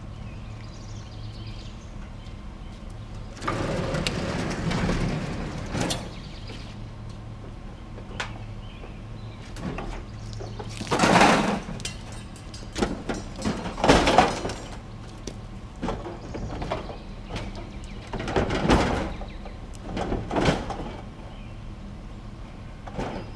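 Heavy metal stove being dragged and shoved onto a truck: a long scrape a few seconds in, then several loud scraping bangs of sheet metal, over a steady low hum.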